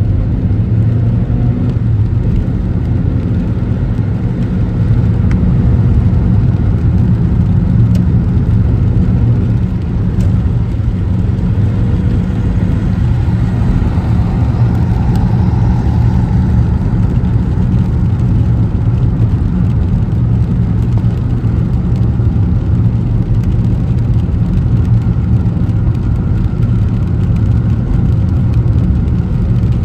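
Car driving along a city road: a steady low rumble of engine and tyre noise, with a couple of faint clicks.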